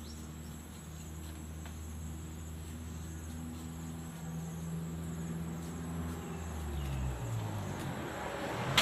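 Low engine hum of a vehicle on the road, getting louder toward the end as it approaches, its pitch sliding in the last couple of seconds.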